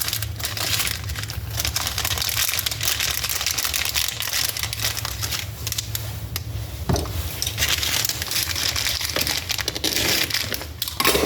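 Plastic packaging crinkling and crackling as it is handled and torn open to take out a small oil seal. A steady low hum runs underneath.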